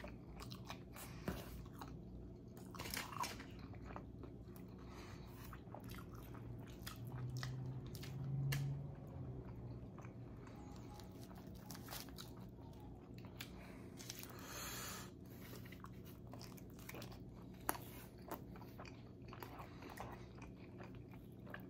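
Faint close-up chewing and biting of pizza, with wet mouth clicks, and a short low hummed "mm" about eight seconds in.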